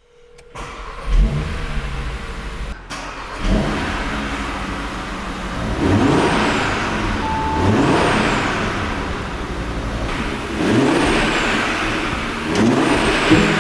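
Audi RS Q3's turbocharged 2.5 TFSI five-cylinder engine starting about a second in, then revved about five times, its pitch rising and falling with each blip.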